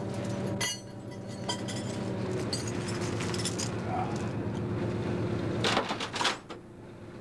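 The antique International fire engine's engine runs steadily at idle, with several sharp metallic clinks over it. The loudest pair of clinks comes about six seconds in.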